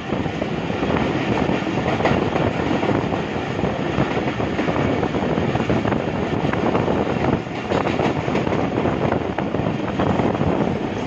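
Passenger train running at speed, heard from beside the coach: a steady rumble of wheels on the rails, with a few clacks over rail joints.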